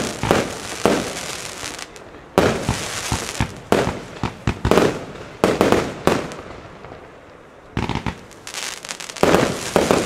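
A firework battery firing aerial shots: sharp launch bangs and star bursts come in quick irregular clusters with short gaps between them. The loudest cluster starts about two and a half seconds in.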